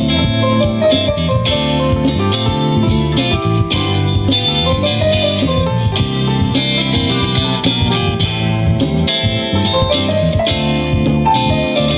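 Funk band playing live, instrumental: electric guitar over bass and drums with a steady beat.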